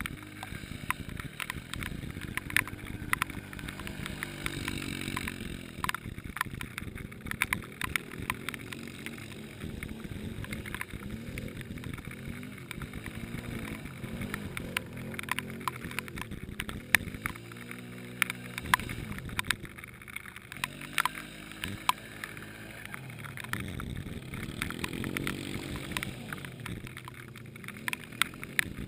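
ATV engines revving in a mud bog at a distance, their pitch rising and falling as the riders work the throttle through the mud, with scattered sharp ticks throughout.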